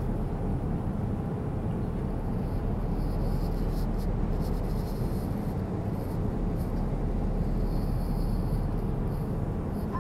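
Steady rushing cabin noise of a Boeing 787 airliner, the even drone of its engines and air heard from a passenger seat.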